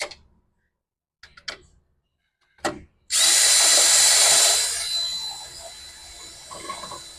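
A few short knocks, then an electric power drill runs for about four seconds with a steady whine, loudest at first and then easing off.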